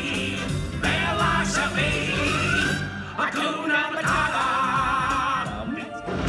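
Stage-show music with singing over a steady low accompaniment. In the second half a singer holds a long note with a wavering vibrato, and the music thins out just before the end.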